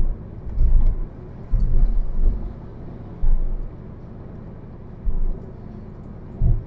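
Ford EcoSport cruising on a cement highway, heard from inside the car: a steady rumble of tyres and road, broken by several short, louder low thumps at uneven intervals.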